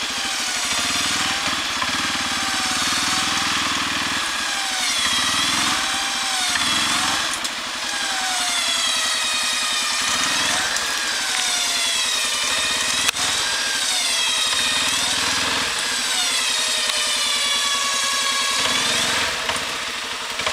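Quad bike (ATV) engine revving up and down over and over as it labours up a steep dirt bank. A single sharp click comes partway through.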